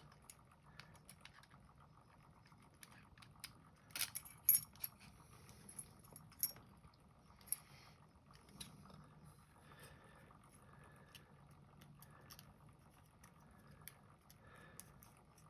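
Faint scattered metallic clicks, taps and light scraping of a shim and tools working into a pin tumbler lock's pin stacks to free the plug, with a short cluster of louder clicks about four seconds in.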